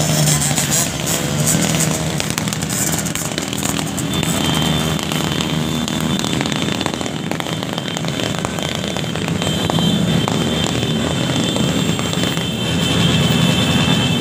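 Many motorcycle engines running in a passing convoy, with music playing over them.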